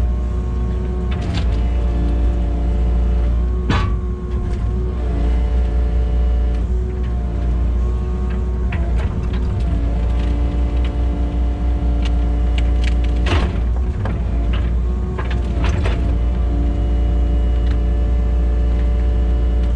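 Kubota KX080 excavator's diesel engine running under load as the machine works to break a tree root, with several sharp knocks, the loudest about 13 seconds in.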